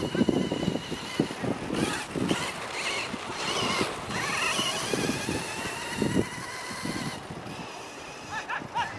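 Electric RC buggy (Kyosho Ultima 2WD) running on a dirt course: the motor and gears whine, rising and falling in pitch with throttle as it accelerates and turns.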